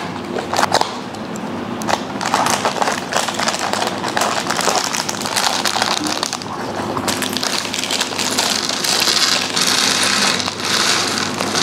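Small plastic building-block pieces clicking and rattling continuously as they are rummaged through and snapped together, with a steady low tone underneath.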